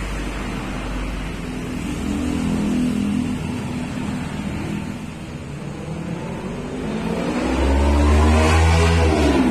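A motor vehicle's engine running, then revving up in the last couple of seconds with a rising pitch, loudest near the end.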